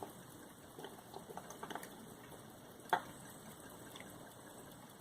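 Faint handling noises: scattered small clicks and taps, with one sharper click about three seconds in, over a steady low hiss.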